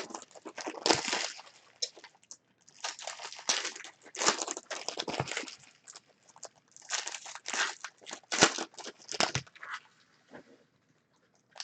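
Foil trading-card packs being torn open and crinkled: irregular rustling and crackling in short bursts with brief pauses, going quiet for about a second near the end.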